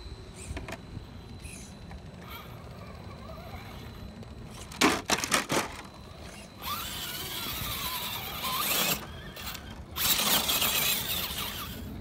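Axial SCX10 II Deadbolt RC rock crawler climbing rock, its electric motor and gears whining and changing pitch with the throttle, and its tyres scrabbling on the stone. A quick cluster of sharp knocks comes about five seconds in.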